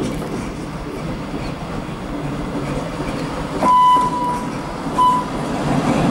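ChME3 diesel shunting locomotive approaching with a passenger train, its engine and running gear rumbling steadily and growing louder toward the end. About three and a half seconds in it sounds a single-tone horn signal: one blast of about a second, then a short blast a second later.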